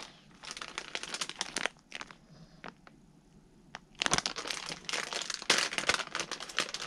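Clear plastic zip-top bait bag crinkling as it is handled, in two spells with a quieter gap and a few sharp clicks between them; the second spell, from about four seconds in, is the louder.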